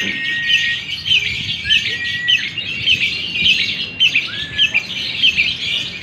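Caged lovebird singing its long chattering song: rapid high chirps that run on without a break, with a few short held whistled notes among them.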